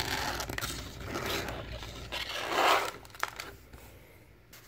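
Hard plastic CGC comic slabs in Mylar bags scraping and rustling against each other and the cardboard box as they are handled. The noise is loudest about two and a half seconds in and then dies down.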